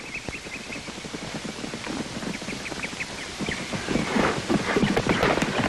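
Birds chirping in short bursts, then from about three and a half seconds in the hoofbeats of horses cantering on dirt, growing louder.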